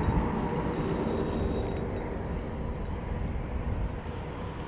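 Wind rumbling and buffeting on the microphone, with a brief high hiss about a second in.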